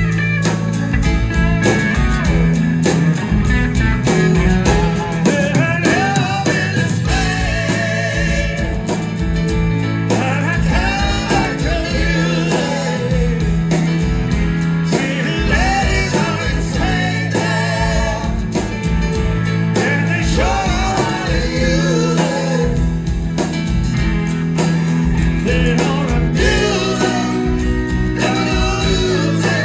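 Live rock band playing with acoustic and electric guitars, bass and drums, with singing over the top.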